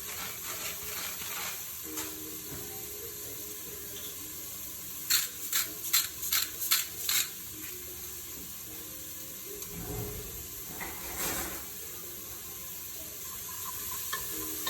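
Onions, garlic and herbs sizzling in hot oil in a pot, a steady frying hiss. A quick run of about seven sharp taps comes a few seconds in, and a brief louder rush of frying noise near the end.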